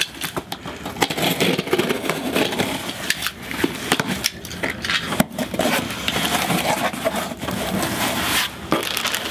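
Cardboard shipping box being opened by hand, with scraping and tearing of the flaps and packing. About four seconds in, a plastic bag starts crinkling and rustling as it is pulled out of the box.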